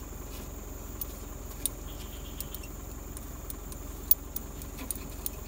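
Vehicle engine idling as a steady low hum, with scattered light metallic clicks and one sharper click about four seconds in. A steady high insect drone runs underneath.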